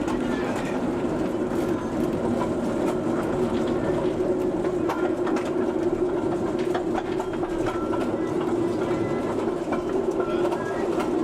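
Minimum-gauge park train running along its track: a steady rumble with scattered clicks from the wheels passing over the rails.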